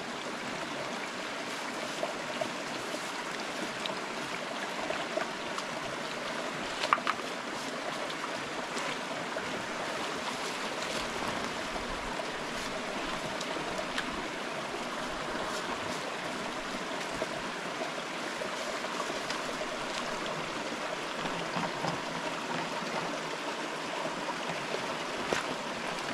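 A mountain river or stream flowing with a steady, even rushing. A few short sharp sounds rise above it, the clearest about seven seconds in.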